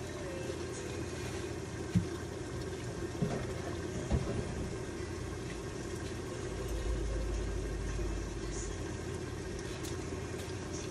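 Chicken curry simmering under a glass lid in a frying pan: a steady hum with a few small pops or ticks about two, three and four seconds in, and a low rumble swelling for a couple of seconds past the middle.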